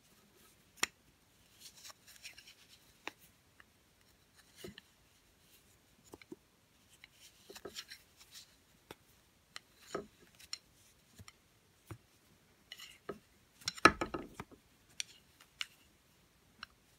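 Knitting needles clicking and tapping against each other at irregular intervals as stitches are knitted, with soft rustles of yarn; a louder cluster of knocks comes about fourteen seconds in.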